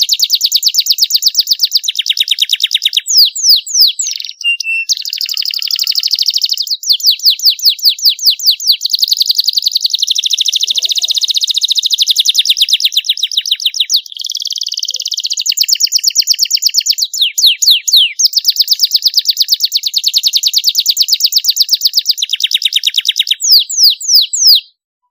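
Domestic canary singing a long, unbroken song of fast rolling trills, with runs of quick notes that sweep down in pitch, breaking off near the end.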